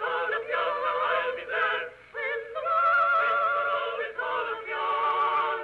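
Voices singing a slow tune together, with wavering vibrato on long held notes and a short break between phrases about two seconds in. The sound is thin and cut off in the treble, like an early phonograph recording.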